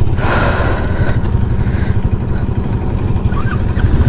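Royal Enfield Classic 350's single-cylinder engine running with a steady, even low beat. A brief hiss of noise comes in the first second.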